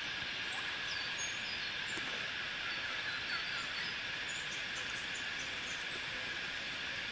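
Steady outdoor bush ambience: a continuous high, even drone with a few faint, short bird chirps over it.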